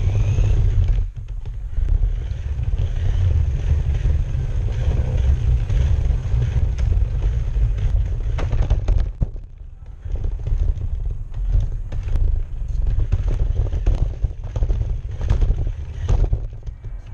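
Battery-powered RC car driving, its motor and wheels making a loud low rumble as heard from a camera mounted on the car's body. It drops off briefly about a second in and again around nine seconds, with scattered knocks as the car bumps along.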